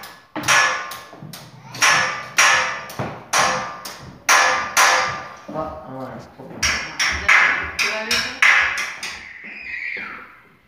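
A hammer striking repeatedly, roughly two blows a second, each blow with a short metallic ring, as a heating pipe is fixed to a masonry wall. The blows stop about nine seconds in.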